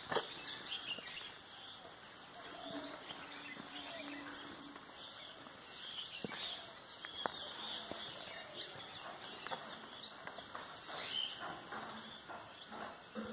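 Birds chirping and calling over and over, with scattered sharp clicks.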